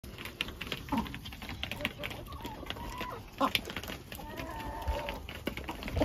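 Chickens pecking feed at a feeder: many quick, irregular taps, with soft hen clucks and a longer low trilling call among them.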